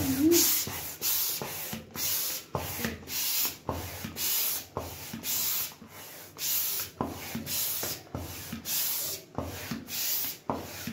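Intex hand-operated air pump being worked to inflate a paddling pool. Each stroke gives a short whoosh of air pushed through the hose, about two strokes a second, with a brief pause about six seconds in.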